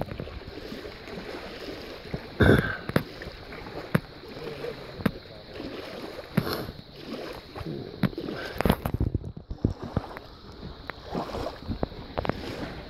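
Small lake waves lapping and splashing irregularly close by, with a louder slap about two and a half seconds in.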